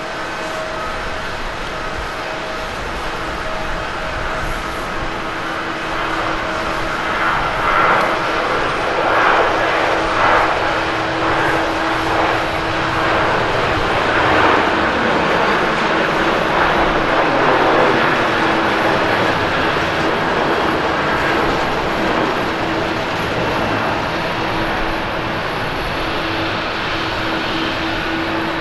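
Boeing 737-700 airliner's CFM56 turbofan engines at take-off thrust: a steady hum under a broad jet rush that swells through the middle as the jet lifts off and climbs, then eases slightly near the end.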